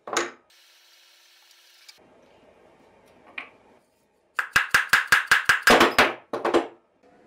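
Hammer driving a steel drift against the old ball bearings in the drill press's pulley to knock them out: sharp, ringing metal-on-metal taps. There is one tap at the start, then, after a pause, a quick run of about fifteen taps at roughly six a second.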